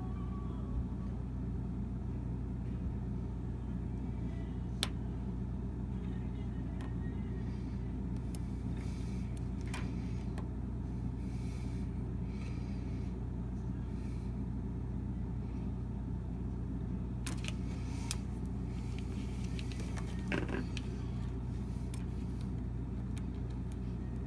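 RE350T6 electric water heater with a bad heating element, giving off a steady low hum with scattered sharp clicks and short crackles.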